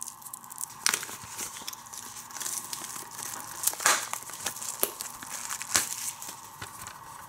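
Plastic shrink wrap being torn and peeled off a factory-sealed DVD case, crinkling throughout with a few sharper crackles.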